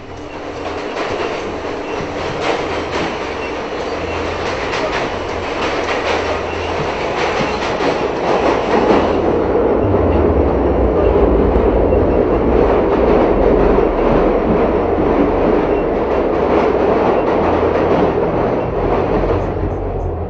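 Subway train running: a steady rushing noise with rapid clattering of the wheels over the rail joints. It grows louder and deeper about halfway through.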